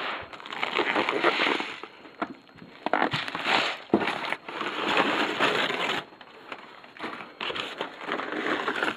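Packaging being handled and crinkled while items are unpacked from a box, in rustling bursts with two short pauses.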